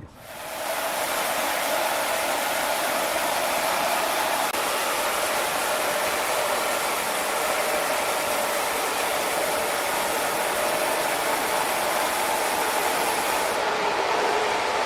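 Sawmill saw cutting through timber: a loud, steady machine noise that comes in within the first second, its high hiss dropping away near the end.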